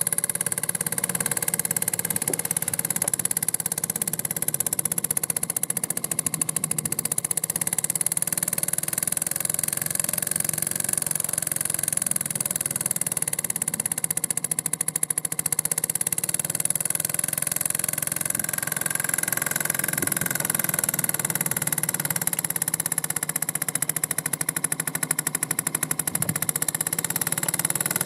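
Small brass two-cylinder boxer model steam engine with a rotary disc valve running steadily on compressed air: a rapid, even run of exhaust beats with a strong hiss of escaping air.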